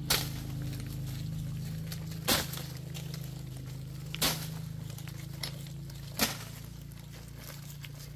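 A long wooden pole striking the branches of a tree to knock leaves down: four sharp whacks about two seconds apart, over a low steady hum.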